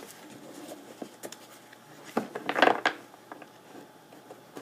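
Trading cards being handled: scattered light clicks, then a cluster of sharp clicks and rustling about two to three seconds in.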